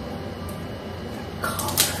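Handling noise from unpacking a felt hat from its box: a quiet stretch, then a short burst of rustling and scraping about a second and a half in, the loudest stroke just before the end.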